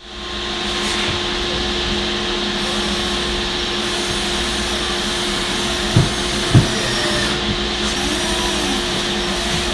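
An electric workshop tool running steadily, a rushing whine with a constant hum, and two sharp knocks about six seconds in.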